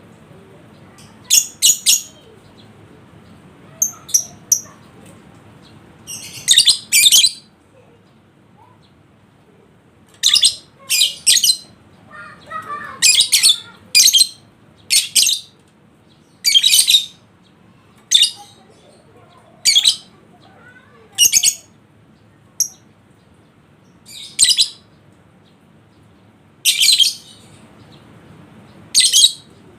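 Lovebird giving short, shrill chirping bursts, each under a second, repeated every second or two, some as quick doubles: the excited calling used as a trigger recording to get other lovebirds to answer.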